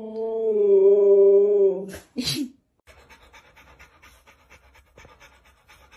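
A Siberian husky howls one long, steady note for about two seconds, then gives a short, higher cry. After that a Rottweiler pants quickly and evenly.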